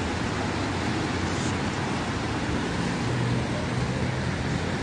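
Steady rushing splash of fountain jets falling into a pool, mixed with city road traffic; a low engine hum swells about three seconds in.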